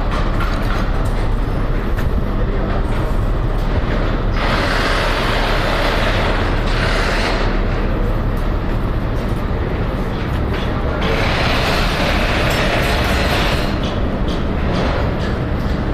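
Truck-mounted crane's diesel engine running steadily while lifting a load, a constant low rumble with hissing noise that grows louder for a few seconds at a time.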